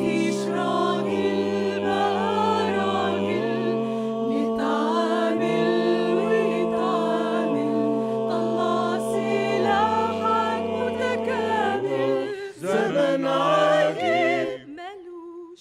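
Mixed a cappella choir singing held chords, with the bass voices stepping down and back up every couple of seconds under a higher lead line. It is an a cappella arrangement of an Egyptian street song set in classical-style harmony. Near the end the chords break off and a single female voice carries on alone.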